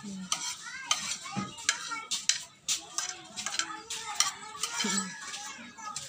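An irregular clatter of sharp clicks and clinks, with a few short high chirps.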